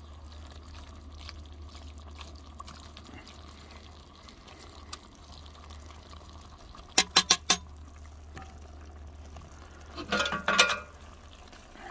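Ground beef and chopped vegetables sizzling and bubbling in a cast-iron Dutch oven over charcoal briquettes as they are stirred with a metal spatula, over a steady low hum. About seven seconds in come four quick sharp taps, and near the end a short clatter.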